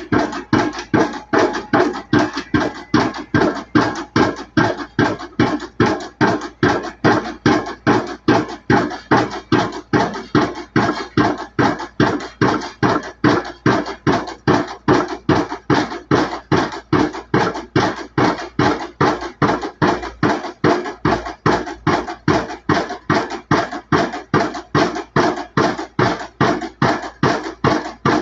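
Junttan PM 23 pile driving rig's hydraulic impact hammer striking a pile in a fast, even series of loud blows, about two and a half a second.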